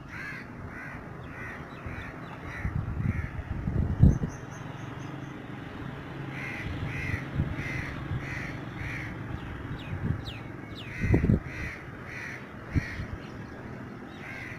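A bird calling in runs of short, evenly spaced calls, about two a second, over a low outdoor background. Dull low thumps come about four and eleven seconds in.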